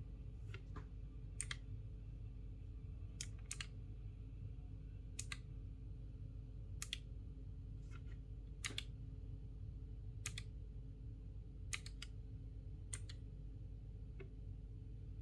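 Keychron K3 V2 low-profile mechanical keyboard with clicky Gateron Blue switches, keys pressed one at a time: a sharp click every second or two, irregularly spaced, some in quick pairs.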